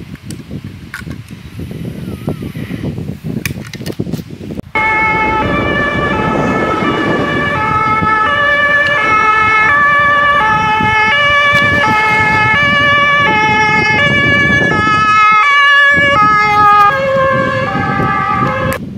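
A few clicks and handling noises, then, about five seconds in, a loud two-tone emergency siren starts abruptly. It alternates between a high and a low pitch about every half second and cuts off suddenly near the end.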